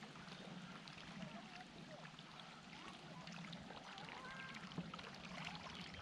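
Faint water trickling and lapping against a kayak's hull.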